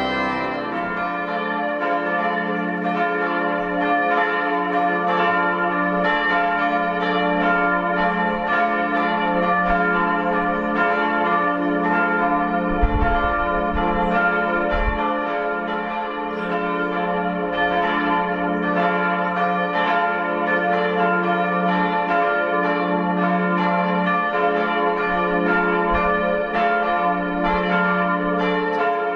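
Several church bells swinging and ringing together in a full peal, their strikes overlapping into a dense, continuous clangour of many pitches. The organ postlude's last held chord dies away in the first second, and a couple of brief low thumps come about halfway through.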